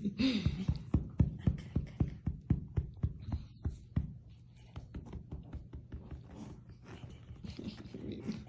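Soft thumps and knocks, about three or four a second, from a puppy and a hand-waved toy playing on a blanket-covered surface. After about four seconds they fade to lighter taps and rustling.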